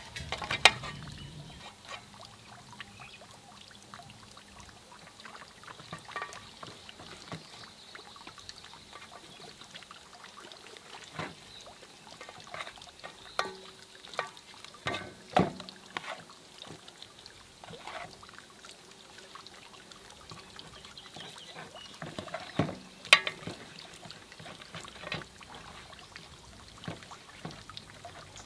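Cooking sounds: scattered, irregular knocks and clinks of utensils against cookware over a faint steady hiss, with some liquid sound.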